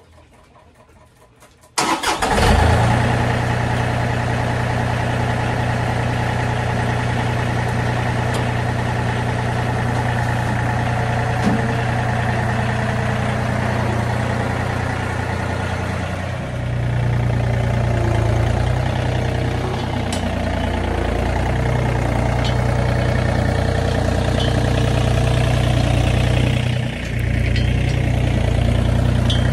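John Deere 3025E compact tractor's three-cylinder diesel engine starting about two seconds in, then running steadily at idle, its note shifting a couple of times.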